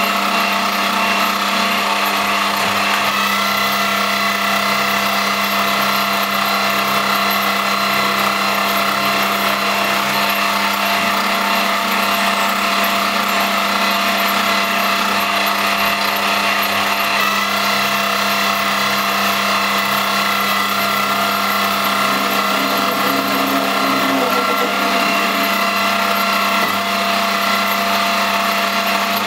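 Homemade CNC lathe rig on an X3 milling machine running steadily, its motors whining at several fixed pitches, with small shifts in pitch a few seconds in and again about halfway through.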